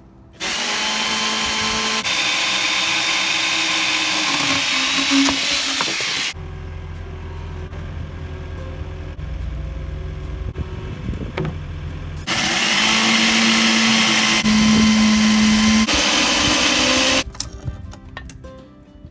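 Power saw fitted with a Prazi beam saw attachment cutting through a 12x12 cedar post, running twice for about five seconds each: first about half a second in, then again about twelve seconds in, with a lower steady hum between the two runs.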